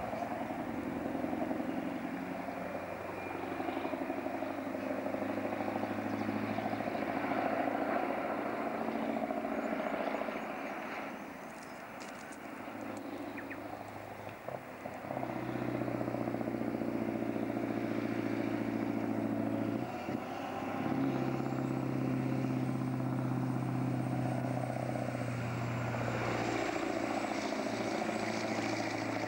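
Diesel engine of a loaded log truck and trailer running under load. Its note drops away and picks up again about halfway through and once more a few seconds later, as it changes gear.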